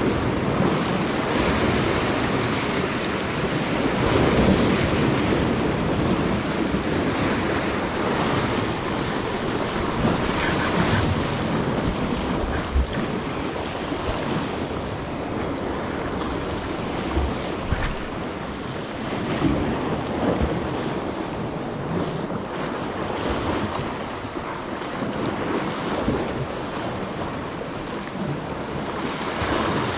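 Ocean surf breaking and washing against jetty rocks, with wind buffeting the microphone. The wash swells and eases every few seconds.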